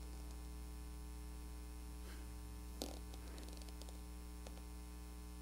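Steady electrical mains hum with its overtones, with a faint click about three seconds in.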